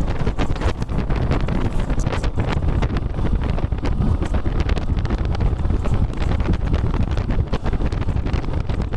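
Wind buffeting the microphone of a moving motorcycle, a loud, ragged rumble, with the bike's running noise beneath it.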